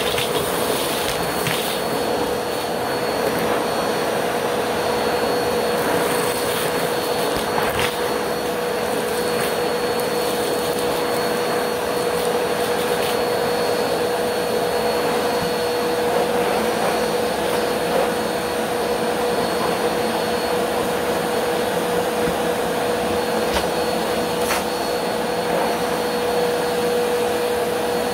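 Bagless upright vacuum cleaner running steadily with a steady hum, its hose wand sucking glitter and sequins up off a carpet, with a few faint clicks here and there.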